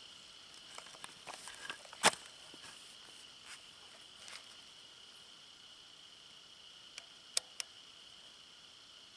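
A steady high insect drone, with one sharp crack about two seconds in and a few short, light clicks near the end.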